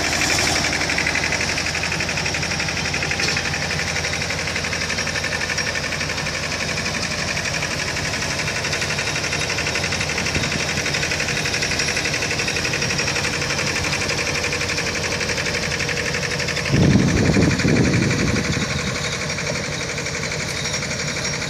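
Wagon drill rig running steadily with a fast rhythmic mechanical beat. About seventeen seconds in, a louder low rush swells for a couple of seconds and then eases back.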